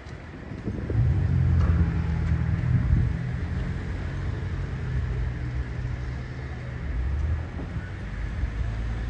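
Tobu 8000 series electric train running past at the platform: a low rumble with a steady low hum that swells about a second in, then eases and carries on.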